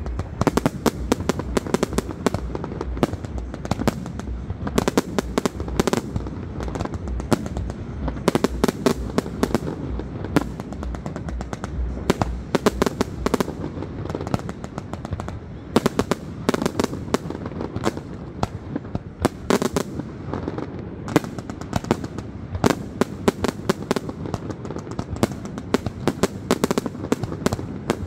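Fireworks display: aerial shells launching and bursting in a rapid, uneven run of bangs and crackles, several a second, without a break.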